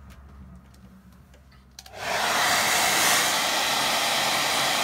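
Turbo Power 2200 hair dryer switched on about two seconds in, then blowing steadily, drying wet watercolour paint on paper.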